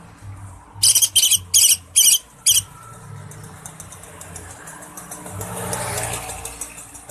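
Green leafbird (cucak ijo) calling: five loud, short, high notes in quick succession about a second in, followed by a faint fast run of high ticking notes. A low steady hum runs underneath.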